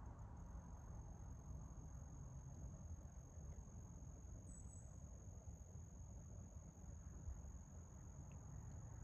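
Very quiet outdoor ambience: a faint steady high-pitched whine over a low, even rumble.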